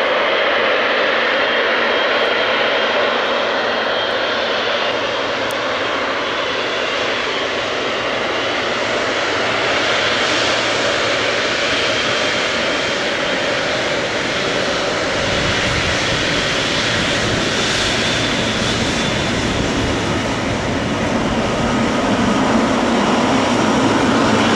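Jet engines of a Boeing 777-300 airliner running loud and steady, with a faint high whine early on and a deeper rumble building through the second half.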